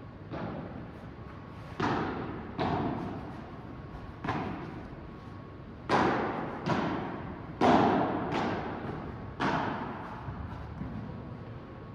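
A padel rally: the ball struck by padel rackets and bouncing off the court and glass walls, about nine sharp hits at irregular intervals, each ringing on in the echoing hall.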